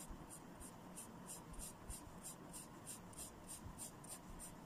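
Blue felt-tip marker scratching quickly back and forth on paper while shading in an area, faint, at about four strokes a second.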